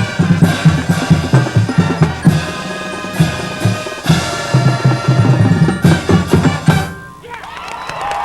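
Marching band playing loudly with a heavy drum-line beat of bass drums and snares, cutting off abruptly about seven seconds in; the crowd's cheering then rises.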